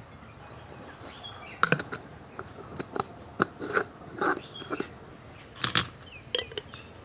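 Dried amla (Indian gooseberry) pieces and glass jars being handled, with lids put on: a string of short, separate knocks and clicks. Birds chirp faintly.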